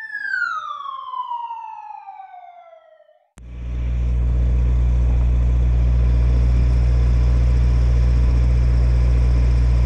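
A siren-like sound effect that winds down in pitch over about three seconds. About three seconds in it cuts off sharply into a loud, steady hiss over a low hum: the sandblasting rig's air supply running.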